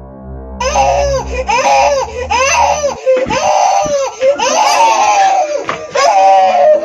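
Loud, anguished crying in a rapid string of rising and falling wails, starting about half a second in. A low droning music bed runs beneath it and drops out about three seconds in.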